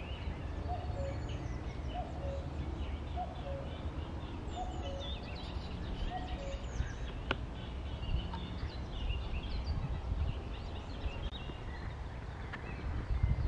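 Common cuckoo calling its two-note 'cu-ckoo', the second note lower, repeated about once a second and stopping around seven seconds in. Smaller songbirds chirp throughout over a low rumble.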